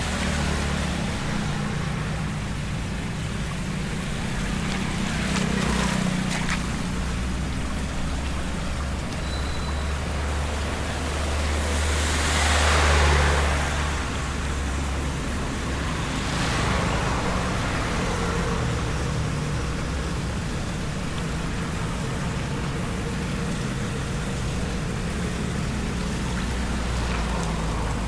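Road traffic on a flooded road: a steady rumble of engines with the rush of tyres through water, and a vehicle passing close about halfway through, swelling and fading, with another smaller pass a few seconds later.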